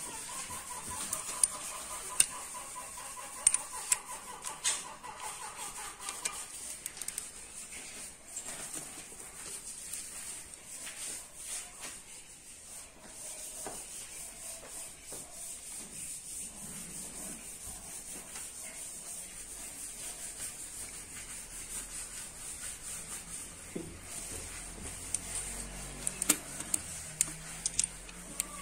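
Ratchet and socket with an angle gauge turning cylinder-head bolts during the angle-torque step, giving irregular metallic clicks and scraping.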